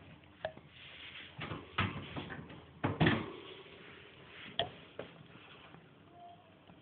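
A few scattered clicks and knocks, with a louder cluster of knocks and rustling about two to three seconds in and one more sharp click a little later.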